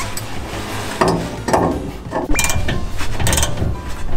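Steel tools and a tie-rod end puller clinking and clanking against a seized rear shock absorber mount, with several sharp metallic knocks and one brief ring, as the puller is fitted to press out the stuck bolt.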